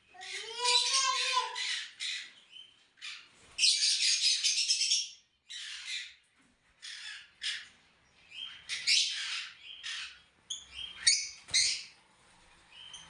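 Rosy-faced lovebirds calling in a cage: a string of shrill, harsh squawks and chirps in short bursts, some lasting about a second, with brief pauses between them. A lower, gliding call rises and falls near the start.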